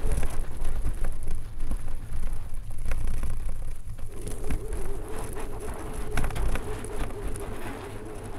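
All-wheel-drive electric trike with three hub-motor wheels riding over snow and ice: wind rumble on the handlebar-mounted camera's microphone, with crackling from the tyres on the snow and the frame rattling. About four seconds in, a steady whine from the hub motors joins and holds.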